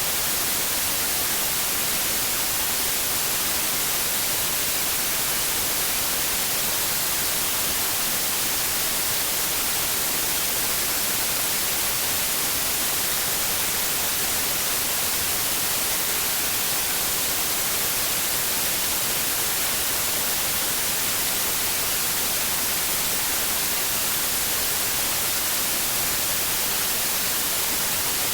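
Steady white noise: an even, unchanging hiss, strongest in the treble.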